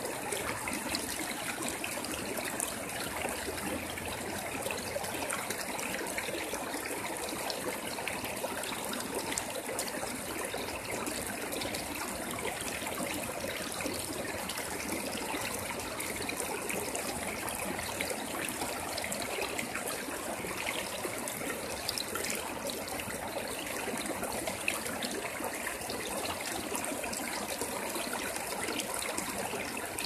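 Shallow stream water flowing and splashing over rocks, steady and even throughout.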